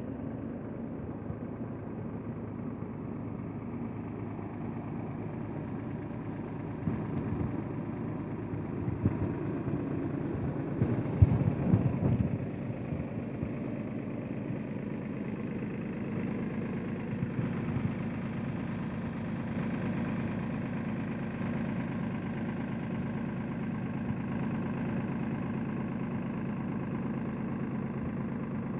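Diesel tractor engine running steadily, driving a belt-driven irrigation water pump. A few louder knocks come about a third of the way in.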